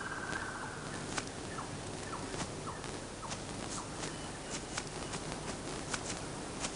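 Faint outdoor ambience: a steady hiss with scattered sharp ticks, and a short run of small chirps about two seconds in.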